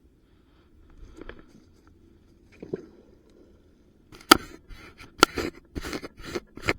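Handling of a magnet-fishing magnet and its gear: a few soft knocks, then a quick series of sharp clicks and short scrapes in the last three seconds.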